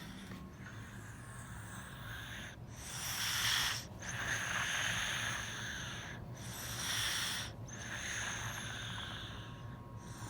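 Snoring: slow, airy breaths in and out, about two full breath cycles, each a shorter, louder breath followed by a longer one, with brief gaps between them.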